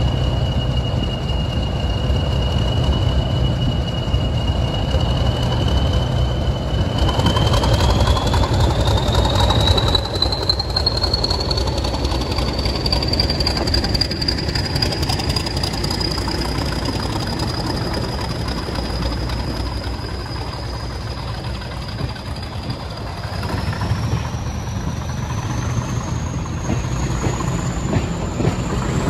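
Class 40 diesel locomotive D213 pulling away under power: the English Electric V16 engine's deep running note carries the turbocharger's high whistle, which rises in pitch about a third of the way in and again near the end as the locomotive accelerates and its coaches follow it past.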